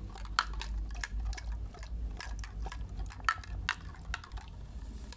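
Water being handled in small, irregular clicks and splashes, a dozen or so sharp little liquid sounds at uneven intervals over a faint steady hum.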